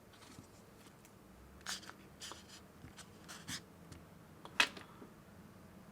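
A few short, light clicks and taps of hands handling small objects in a quiet room, the sharpest one about four and a half seconds in.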